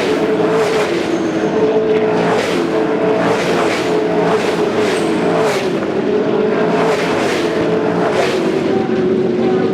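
Several V8 SuperTourer race cars running hard together, with overlapping V8 engine notes whose pitch keeps rising and falling as they accelerate and change gear.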